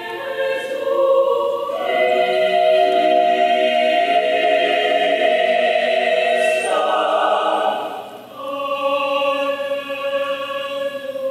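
Mixed chamber choir of men's and women's voices singing held chords. The sound swells fuller and louder about two seconds in, the chord shifts again past the middle, dips briefly about eight seconds in, then settles into a softer sustained chord.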